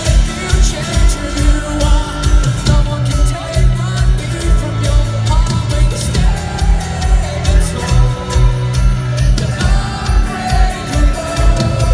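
Live rock band playing loudly, with a steady kick-drum beat about two a second under bass and electric guitar.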